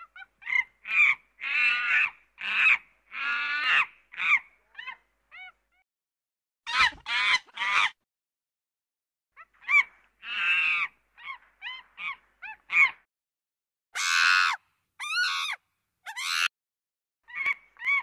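Monkey calls: a run of high-pitched squeals and short chattering chirps in bursts, with pauses of a second or so between groups.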